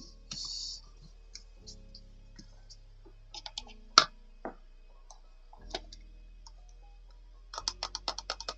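Paper and stationery being handled while crafting a journal page: scattered small clicks and taps, a brief rustle just after the start, one sharp loud click about four seconds in, and a quick run of clicks near the end. Soft background music plays underneath.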